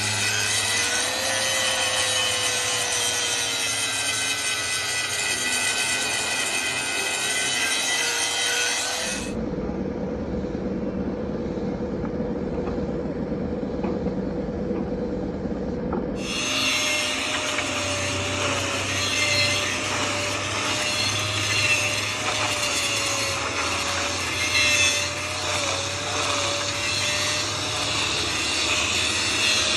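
Handheld electric angle grinder cutting and grinding a steel truck frame rail: a loud, steady motor whine over the hiss of the disc biting the metal. About nine seconds in, the sound turns duller and lower for some seven seconds, then the bright whine comes back.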